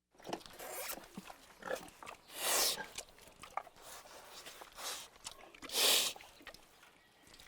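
Pig grunting and snorting in a string of short, irregular grunts, with two louder, breathy snorts about two and a half and six seconds in.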